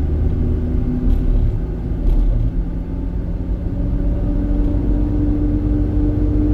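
Onboard sound of a vehicle being driven along a winding mountain road: a low rumble of engine, tyres and wind, with a steady engine note that climbs a little and grows stronger about four seconds in.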